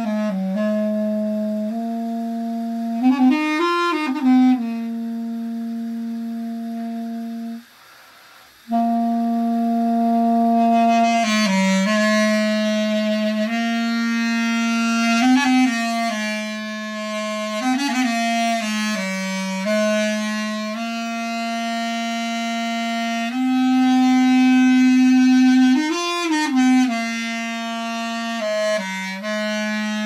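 Duduk playing a slow melody of long held notes, with short sliding turns between them. The playing breaks off for about a second near the eight-second mark.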